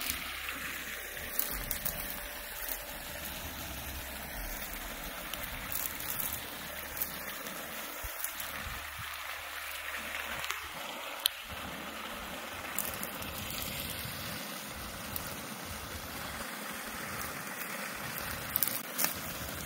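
Water pouring out of a storm drain pipe into a drainage basin, a steady rushing flow, with one sharp click a bit past the middle and a few knocks near the end.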